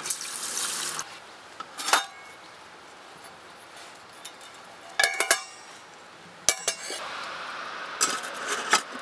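Water poured from a measuring cup into a metal pot of rice for about a second. Then come scattered sharp metal clinks that ring briefly, a cluster about five seconds in and more near the end, as the pot and a small brass alcohol burner are handled.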